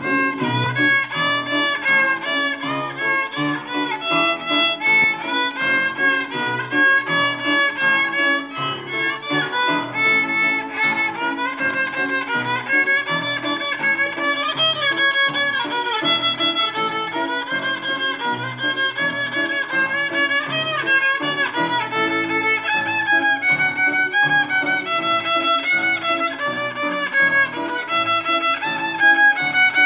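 A beginner violin played by a young child: bowed notes follow one another in a steady stream of a simple tune, with no pauses.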